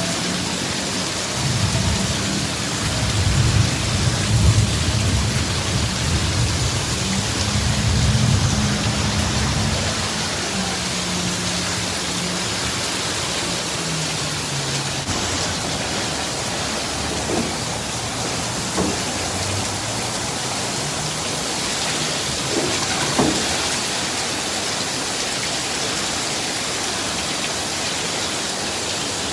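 Heavy rain pouring down steadily. A low rumble swells and fades during the first ten seconds or so.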